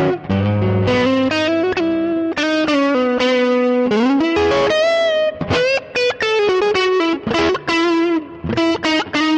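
Electric guitar played through a NUX MG-100 multi-effects processor on its blues preset: a single-note blues lead, with string bends sliding up in pitch and a held note with vibrato about halfway through.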